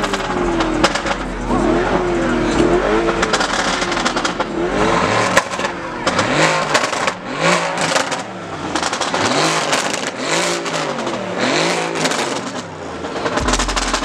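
Lamborghini Urus's twin-turbo V8 revved repeatedly in neutral, heard from inside the cabin: the pitch rises and falls about once a second, with sharp crackles between the blips.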